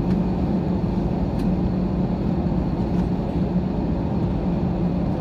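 Jet airliner taxiing with its engines at idle, heard inside the cabin: a steady drone with a constant low hum.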